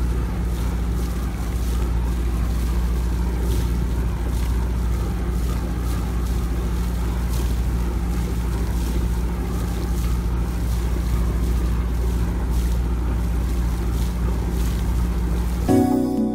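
A boat engine running steadily under way, with water and wind noise on the microphone. Music starts abruptly near the end.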